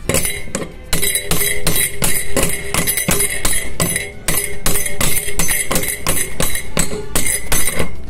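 Light, even hammer taps on a metal pipe driving a ball bearing down the rotor shaft of a centrifugal water pump motor, about four taps a second, each with a metallic ring. The bearing is still working its way toward its seat.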